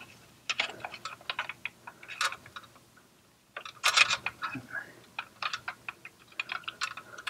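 Small plastic and metal parts being handled inside an inverter as new cooling fans are fitted and lined up under their retaining band: irregular light clicks and rattles, with a louder scrape about four seconds in.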